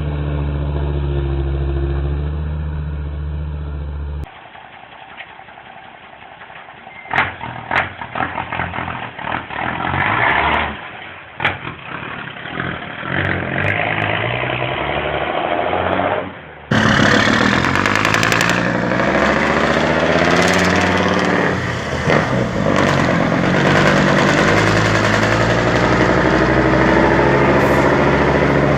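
Truck engines rumbling, in three cut-together stretches. First a steady engine drone. Then about twelve seconds of quieter, irregular knocks and clatter. From about twelve seconds before the end, a louder engine runs hard, its pitch wavering up and down.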